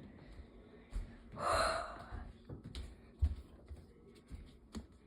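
A frightened person gasps once, a breathy intake of about half a second, roughly a second and a half in. Several soft low thumps and bumps come before and after it.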